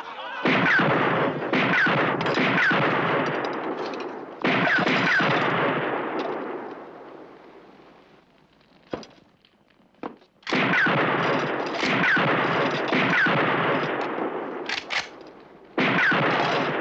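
Rifle shots from a Winchester lever-action rifle, fired in two quick runs of several shots each, every shot echoing away, with a lull of a few seconds between the runs. The shots hit a steel suit of armour.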